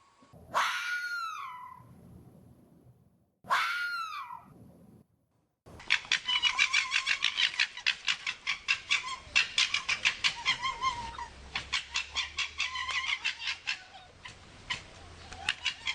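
Red fox calling: two short calls that rise and fall in pitch, then a long rapid stuttering chatter of quick pulses, several a second, lasting about ten seconds.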